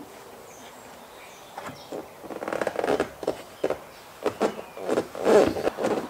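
Scattered clicks, taps and rustling from small plastic trim parts and the removed gear knob being handled and set down around the exposed MX5 shifter. The noises start about a second and a half in and come thicker near the middle and end.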